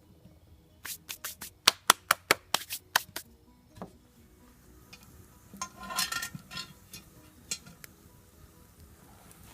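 Quiet background music, with a quick run of about a dozen sharp clicks or taps about a second in, a brief clatter around six seconds in, and one more click soon after.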